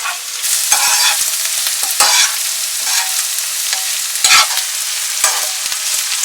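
Food frying in sunflower oil in a pan, with a steady sizzle, while a spoon stirs it and knocks against the pan about once a second.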